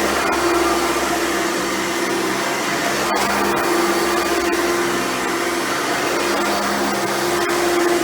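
Hoover Runabout vacuum cleaner running steadily: an even motor hum over a wide rush of air.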